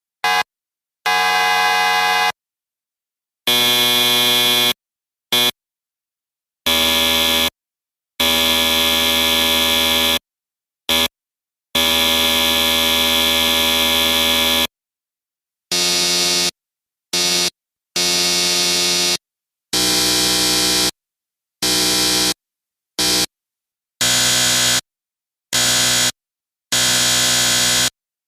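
Electric buzzers sounding in a series of about eighteen harsh buzzes of different lengths, from short blips to one held for about three seconds, with dead silence between them.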